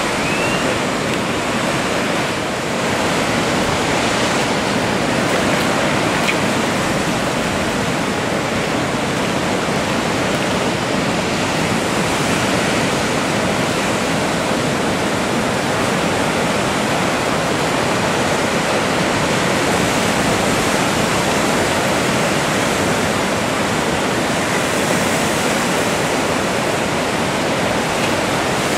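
Breaking ocean surf: a steady, loud rush of waves crashing and washing in.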